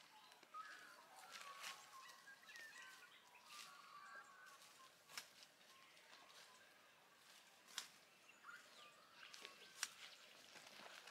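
Faint, quiet outdoor ambience of distant birds calling, with a few sharp clicks or rustles from close by.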